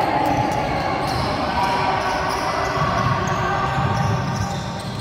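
Basketball bouncing on a wooden court during live play, with players' running footsteps, in a large sports hall.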